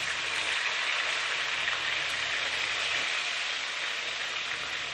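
Chopped red chilies and garlic frying in oil in a wok: a steady sizzle, the first step of a garlic-chili sambal.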